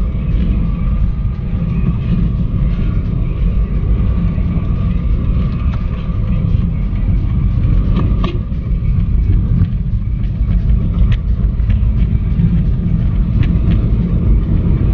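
Steady low road and engine rumble of a moving car, heard inside the cabin, with a few faint clicks scattered through it.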